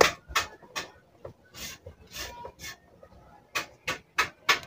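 Irregular sharp clicks and knocks of hard plastic being handled, with a few short scraping rubs, as the plastic base of a blender is fitted and closed up.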